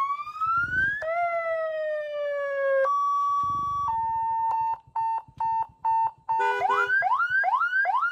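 Police-style electronic siren (hooter) on a motorcycle, switched through its tones from a handheld controller: a slow rising then falling wail, a steady tone that drops a step in pitch, a run of short beeps, then a fast upward yelp repeating about two and a half times a second.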